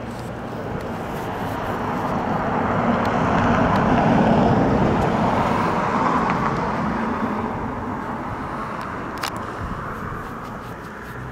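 A motor vehicle passing by, its engine and tyre noise swelling to a peak about four seconds in and then slowly fading away.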